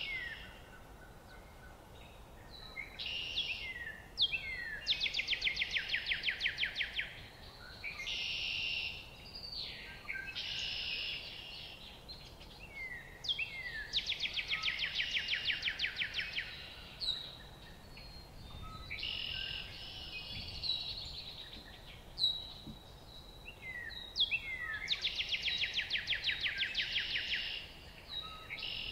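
Songbirds singing. One bird repeats a rapid trill of about two seconds roughly every ten seconds, with short down-slurred notes and buzzy phrases from other birds in between.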